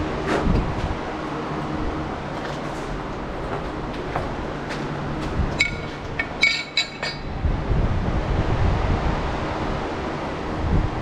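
A few light metallic clinks about six seconds in, as a billet aluminium flange is set onto a machined aluminium intake, over a steady low hum.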